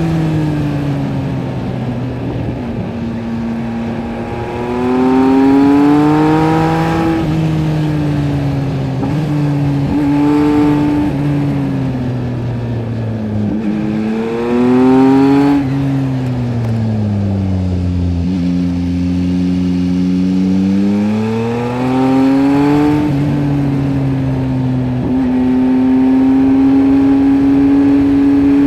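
Yamaha MT-09 SP's 890 cc inline-three engine through a LeoVince LV Race exhaust, on the move. It revs up in three pulls that rise in pitch and drop back as the revs fall, with a longer slowdown midway and steadier running between.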